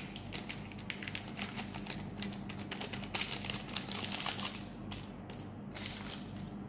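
Plastic foil sachet crinkling and tapping as matcha drink powder is shaken out of it into a glass: a run of quick crackles and small clicks, busiest in the middle.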